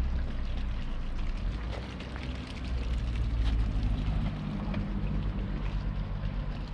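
Steady low rumble of street traffic, with a vehicle engine's hum coming up in the second half.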